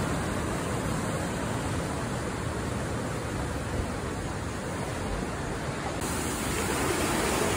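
Steady rushing noise of wind and sea surf at the coast, with no single wave or gust standing out.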